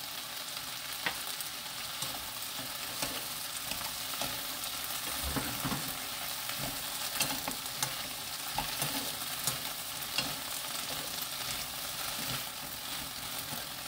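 Sliced onions sizzling in a nonstick frying pan while being tossed with two wooden spoons, with light clicks and scrapes of the spoons against the pan throughout.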